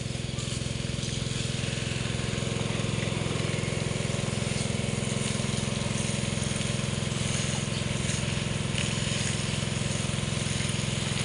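Water pump motor running steadily with a low, even hum, together with the hiss of perforated spray-tape hoses misting water over the rows.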